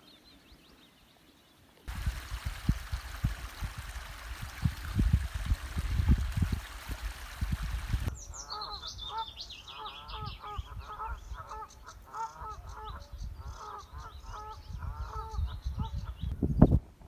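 Birds calling in a rapid, repeated series, with higher falling calls above them. Before that, about six seconds of even rushing noise with low rumbles of wind on the microphone, and a loud thump near the end.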